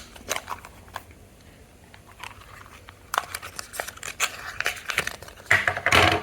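Packaging being handled: scattered small clicks and crinkling rustles, sparse at first and busier from about halfway in, thickest just before the end.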